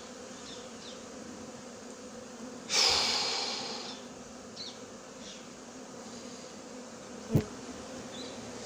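Honeybees of a freshly transferred colony flying around their new hive and regrouping into it: a steady buzzing hum. About three seconds in a sudden loud rushing noise fades out over a second, and near the end there is one short knock.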